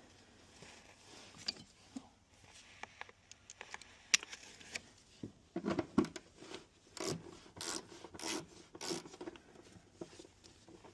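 Hand ratchet with a socket working a 10mm bolt loose, a run of short ratcheting strokes about every half second in the second half, with scattered clicks and rubbing of the tool against carpet and trim.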